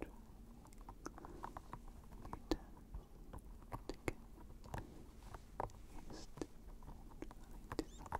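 Close-miked ASMR mouth sounds: soft wet clicks and smacks at irregular intervals, several a second at times.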